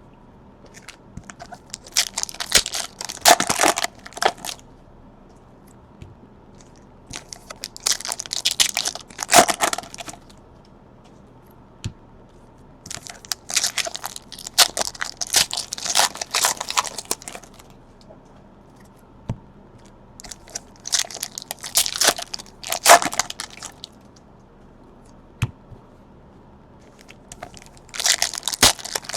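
Trading card pack wrappers being torn open and crinkled by hand, in five bursts of about three to four seconds each, several seconds apart.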